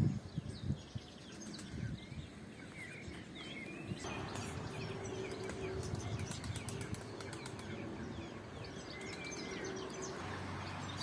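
Small birds chirping again and again over a steady outdoor background noise. There are a few low thumps in the first second, and the background grows louder about four seconds in.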